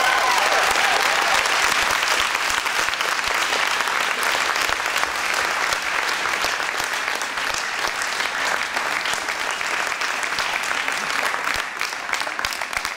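An audience applauding steadily, easing off a little towards the end.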